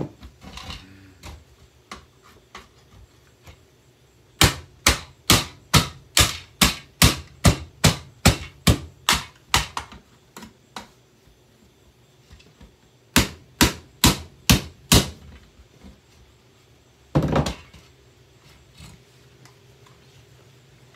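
Hammer blows on a handheld vacuum cleaner being broken apart: a quick run of sharp strikes about three a second for some five seconds, then after a pause a shorter run of about six, and one heavier hit near the end.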